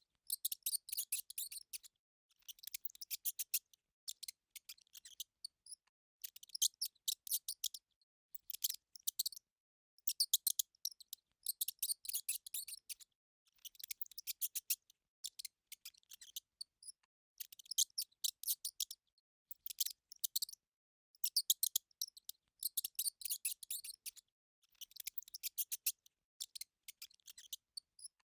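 Repeated bursts of rapid, high-pitched clicking, each lasting about one to two seconds with brief pauses between.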